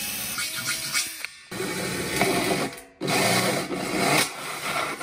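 Power drills cutting into a stainless steel food container. First a cordless drill with a 4 mm bit whines as it bores a small hole. Then, after sudden breaks about a second and about three seconds in, a corded drill with a 30 mm carbide hole saw grinds through the steel.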